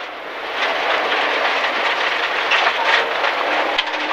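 Cabin noise inside a Rally First MG ZR 1.4 on a gravel stage: loose gravel rattling and drumming against the underbody and wheel arches over the engine. It builds up about a second in.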